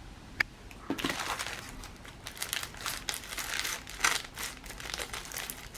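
Plastic packaging bag crinkling and rustling in the hands as it is handled and opened, in many short strokes, after a single light click about half a second in.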